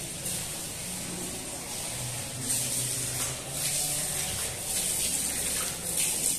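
Water running from a wall tap onto cupped hands and splashing as hands and face are rinsed at a tiled washing basin, with louder splashing from about two and a half seconds in.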